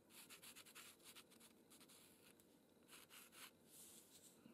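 Faint scratching of a pastel pencil on Pastelmat paper, a quick irregular run of short strokes.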